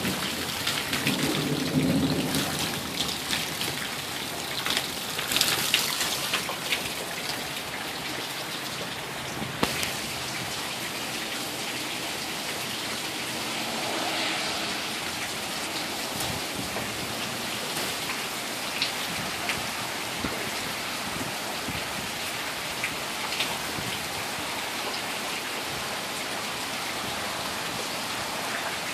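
Rain falling steadily on pavement, gravel and foliage, with scattered sharp taps of drops landing close by; it is a little louder and more uneven in the first several seconds, then settles into an even hiss.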